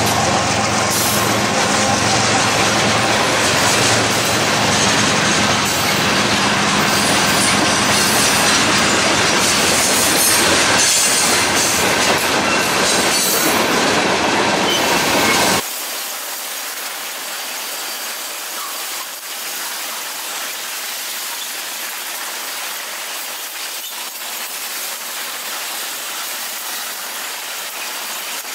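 Freight train passing close by: a diesel locomotive goes past at the start, then a long string of tank cars rolls by with wheel and rail noise. About halfway through, the deep rumble cuts off suddenly and the sound turns thinner and quieter.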